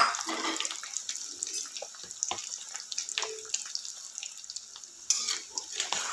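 Boiled potatoes deep-frying in hot mustard oil: a steady sizzling hiss with many small crackles. The sizzle grows louder about five seconds in as a spatula moves the potatoes.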